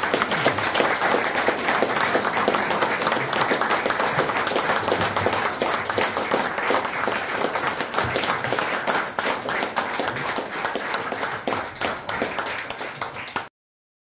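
Audience applauding, a dense patter of many hands clapping that thins out toward the end and then cuts off suddenly.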